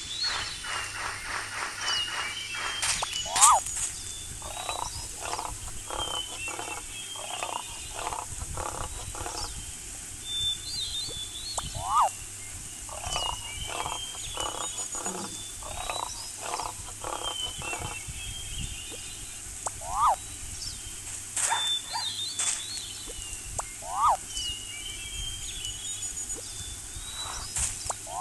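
Animal and bird calls: high twittering chirps throughout, a run of quick repeated pulsed calls, and a short rising call that comes back every several seconds.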